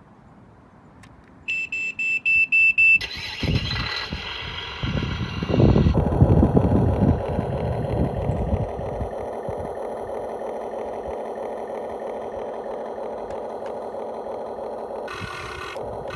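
Huina 1592 RC excavator's built-in sound module: a quick run of short beeps, then a simulated diesel engine cranking and starting, settling into a steady idle.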